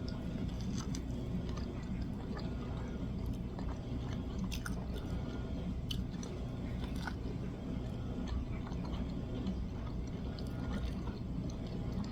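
A person chewing and biting into crispy air-fried chicken wings, with scattered small crunches and clicks.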